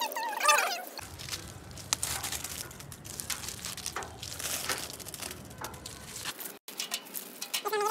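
Rinsed peanut shells tipped from a plastic basket onto dry leaves in a steel sink planter: a crackling rustle of many small clicks.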